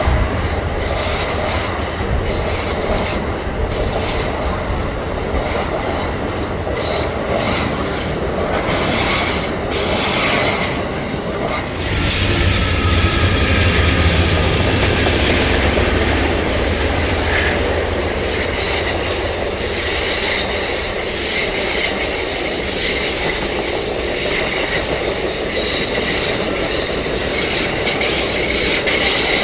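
Amtrak Superliner passenger cars rolling past on a curve, wheels clicking over the rails and squealing. About twelve seconds in, the low rumble of two GE Genesis diesel locomotives comes in as they lead the train past, followed by more cars rolling by.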